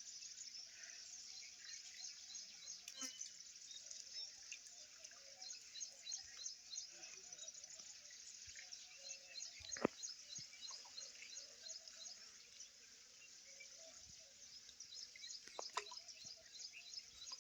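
Faint night chorus of insects, a dense stream of rapid high chirps, with a lower warbling call underneath. A sharp click sounds about ten seconds in, and another near the end.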